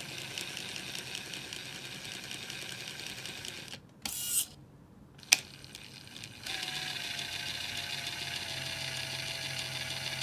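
Traxxas TRX-4 RC crawler drivetrain spinning under its electric motor, with rapid ticking and clicking from the transmission, which is dry of grease. It stops about four seconds in, with a short burst and one sharp click, then runs again steadily with a faint whine from about six and a half seconds.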